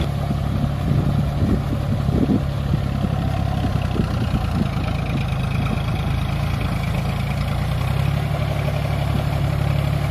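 Farm tractor's diesel engine running steadily as the tractor works a flooded paddy field on metal cage wheels, pulling a tillage implement through the mud.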